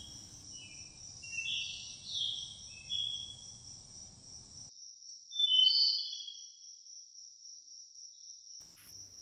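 Crickets trilling steadily in a high, continuous chirr, with a few short chirping calls over it, the loudest about six seconds in.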